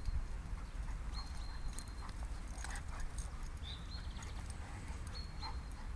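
A Doberman and another dog play-fighting on grass: scattered scuffles and paw thuds over a steady low rumble.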